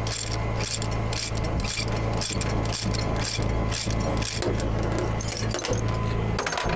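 Ratchet chain binder on a tow truck's load being worked, its pawl clicking in a steady run of strokes about twice a second, over a steady low hum.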